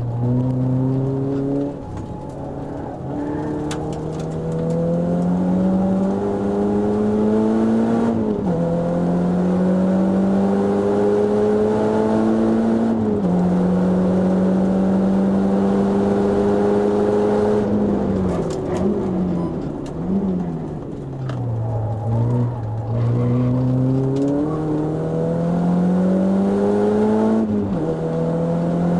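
Renault Clio RS four-cylinder engine heard from inside the cabin, pulling hard on track: the note climbs steadily and drops at each upshift, about three times in the first half. Around two-thirds of the way through it falls away under braking with a couple of quick throttle blips on the downshifts, then climbs again to another upshift near the end.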